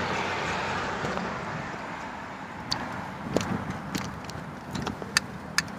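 Street traffic noise, like a car going past, fading slowly away, with a few sharp light clicks and rattles in the second half.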